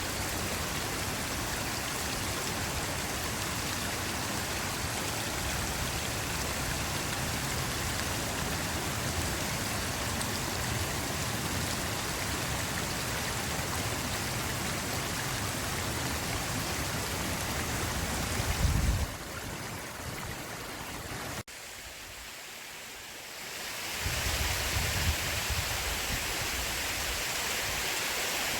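A forest stream running, a steady rush of water. About two-thirds through there is a brief low thump, then the water sound drops quieter and thinner for a few seconds before coming back.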